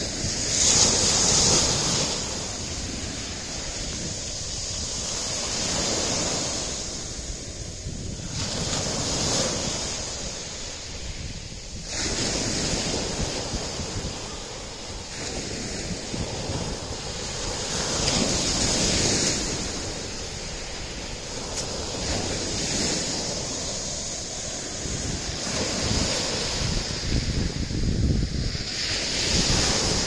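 Sea waves breaking on a pebble beach. The surf swells and eases every few seconds.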